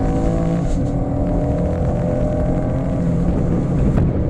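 A 2018 Chevrolet Camaro's 3.6-litre V6 running while the car drives, its engine note easing and fading within the first second and a half, leaving steady tyre and wind noise over a low rumble. A single sharp click comes near the end.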